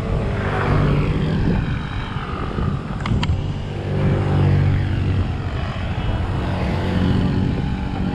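Motorcycle engines passing on the road, swelling and fading as they go by. A couple of sharp clicks come about three seconds in.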